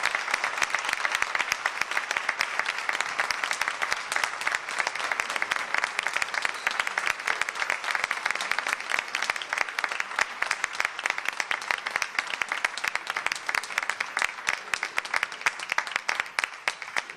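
Audience applauding, a sustained, even round of clapping.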